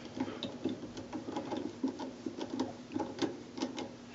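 Light, irregular clicks and taps, a few a second, as hand tools and plastic parts are worked while a washing machine's agitator is put back together, over a faint steady hum.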